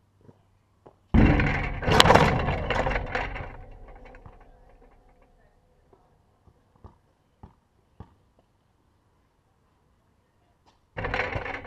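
A basketball bangs loudly into the hoop and backboard that the camera is mounted on: a hit, a second hit about a second later, then a rattling ring from the backboard and rim that dies away over about three seconds. Faint ball bounces on the concrete follow, and another shot strikes the hoop near the end.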